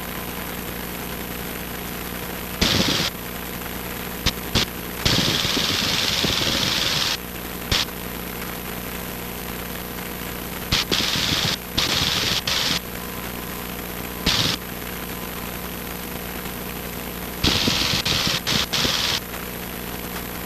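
Cessna 150's four-cylinder Continental O-200 engine and propeller droning steadily in flight. Repeated short bursts of rushing noise cut in and out abruptly over the drone.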